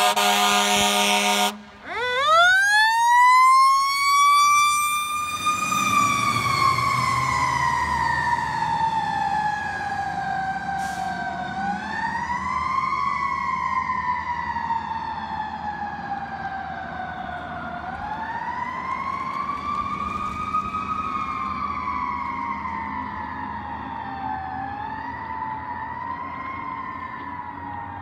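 Fire engine's horn blasts briefly, then its siren winds up over about two seconds and slowly falls in pitch, pushed up again three more times. It grows fainter as the truck drives away.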